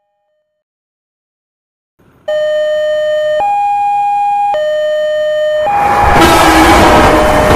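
Silence, then a railroad crossing warning signal starts: a steady two-tone alarm alternating between a lower and a higher note about once a second. From about halfway through, the rushing noise of an approaching train rises under it and grows loud.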